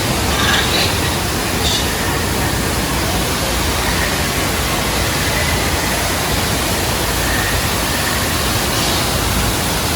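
Steady rushing noise, unbroken and even, with faint voices in the background.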